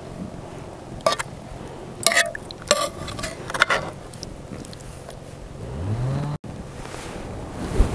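Metal serving spoon clinking and scraping against an aluminium cooking pot while chicken karahi is ladled out, several clinks in the first few seconds. Later a low hum rises in pitch and cuts off suddenly, and a low thump comes near the end.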